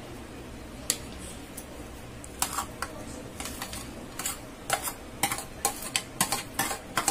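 A spoon scraping chopped onion off a stainless steel plate into a salad bowl: a run of short, irregular clinks and scrapes of spoon against plate and bowl rim, mostly from about two and a half seconds in.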